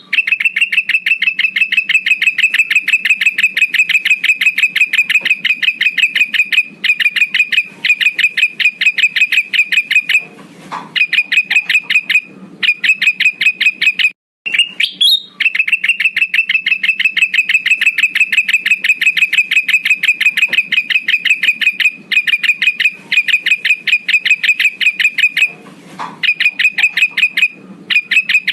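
Male kutilang emas calling, a lure call for drawing in rival males: long runs of rapid chirps repeated several times a second at one steady pitch, broken by short pauses. The same stretch starts over about halfway through, as a looped recording.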